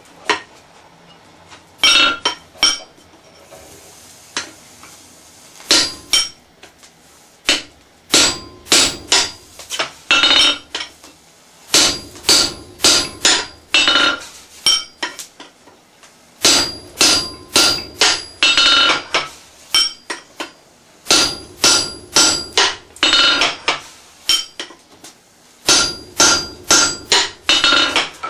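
Hand hammer blows on a red-hot steel bar against an anvil, in groups of several quick strikes with short pauses between. Each strike rings with the anvil's clear metallic ring.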